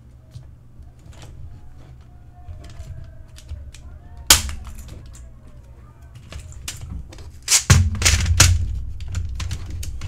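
Clicks and plastic clatter of a membrane computer keyboard being handled and its keys pressed on a desk. There is one loud knock about four seconds in and a burst of heavier knocks near the end as the keyboard is turned over and set down.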